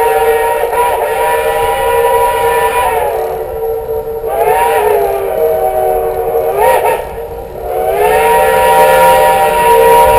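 Steam locomotive whistle of narrow-gauge K-36 Mikado No. 487 blown in one long blast, several tones sounding together. The pitch sags and comes back up several times as the whistle is played ("whistle talk").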